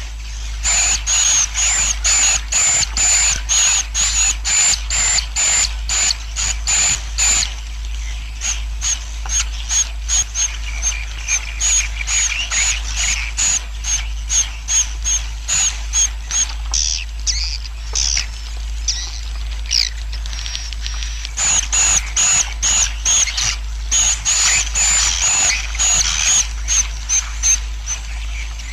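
Swiftlet colony roosting calls (suara inap), the recording played in swiftlet houses to lure the birds to settle: a fast run of short high chirps, several a second. The chirping thins out for a few seconds past the middle, then turns dense again.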